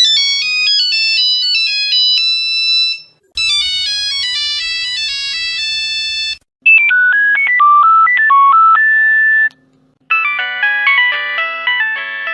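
A run of Nokia mobile phone ringtones played one after another: four different short electronic melodies, each about three seconds long, with a brief silence between them.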